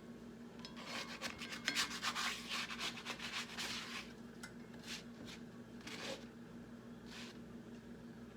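Steel spatula scraping against a cast iron frying pan while working under the edges of a cooking tortilla: a dense run of rasping strokes in the first few seconds, then a few shorter scrapes, over a steady low hum.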